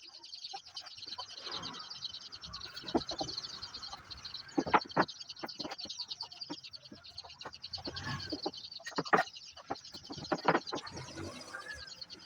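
Birds chirping steadily in a high, fast-pulsing chorus, with scattered sharp knocks and taps throughout.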